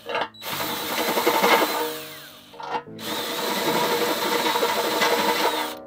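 Cordless drill boring out holes in an aluminum tube fender to open them up one size. It makes two runs of a couple of seconds each, with a short stop between them.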